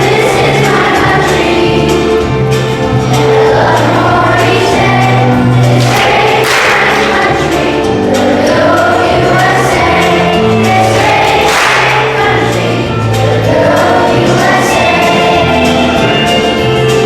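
A choir singing a song together over an instrumental accompaniment.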